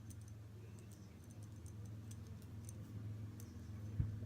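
Faint clicks and ticks of a fidget spinner being handled, over a steady low hum, with one soft thump about four seconds in.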